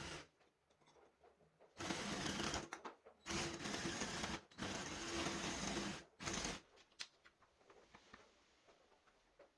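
Small electric power tool motor running in four short bursts, three of about a second each and a brief last one, with faint clicks and handling after it.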